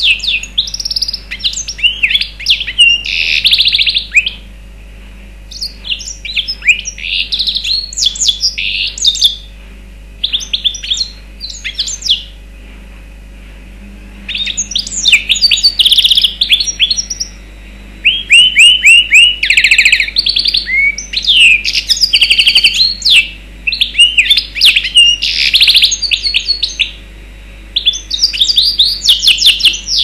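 Mozambique serin (yellow-fronted canary) × canary hybrid singing: loud phrases of fast, high twittering and trilled notes, each lasting a few seconds, broken by short pauses.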